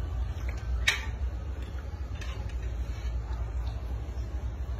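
Steady low hum with one sharp click about a second in and a few faint ticks after it.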